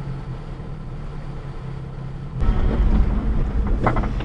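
Japanese kei mini truck's small three-cylinder engine idling steadily, heard from inside the cab. About two and a half seconds in it gives way to a louder, rougher rumble of the truck under way, with road and cab noise.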